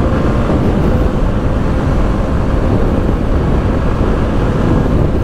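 Motorcycle riding steadily through traffic, heard from the rider's own camera: dense, steady wind and road noise with a faint, even engine tone underneath.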